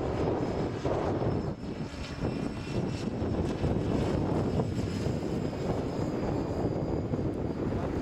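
A 700-size radio-controlled helicopter with an Airwolf scale body flying overhead: a steady whir from its rotors and motor, with wind rumbling on the microphone.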